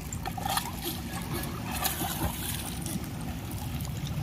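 Children swimming and splashing in an outdoor pool, with louder splashes about half a second and two seconds in, over a steady low rumble.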